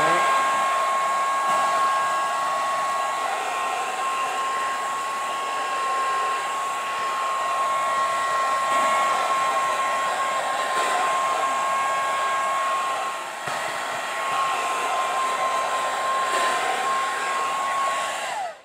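Handheld blow dryer blowing steadily with a high whine, heat-shrinking plastic wrap around a gift tray. It is switched off just before the end, its whine dropping away.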